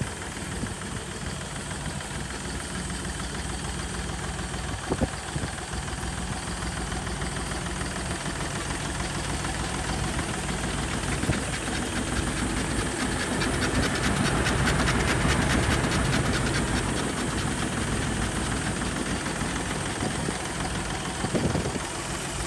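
Tractor engine running steadily at idle while it drives a Hardi LXY800 crop sprayer, with a hiss of water spraying from the boom nozzles. The hiss grows louder about two-thirds of the way through.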